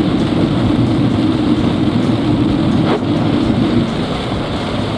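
Heavy rain beating on a car's roof and windshield together with tyre noise on the wet road, heard inside the moving car's cabin as a loud, steady rush.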